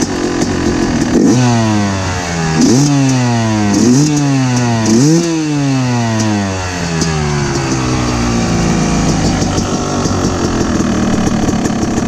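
Yamaha YZ250X two-stroke single-cylinder engine breathing through an FMF PowerCore 2 silencer, blipped four times in quick succession from idle. Each rev shoots up and falls straight back, and the engine then settles into a steady idle for the second half.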